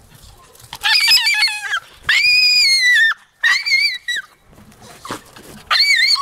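Jagdterrier puppy whining in very high-pitched squeals: four drawn-out calls, each about a second long, the first one wavering. The calls start about a second in.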